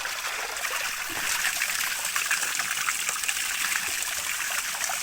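Small stream of drinking water trickling steadily, with a constant patter of tiny splashes.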